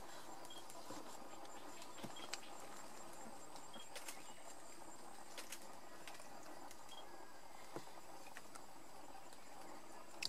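Tropical forest insects droning steadily with a thin high buzz, a short high chirp repeating every second or two. A few soft clicks and rustles of dry leaf litter come through, as bar-backed partridges scratch and peck among the leaves.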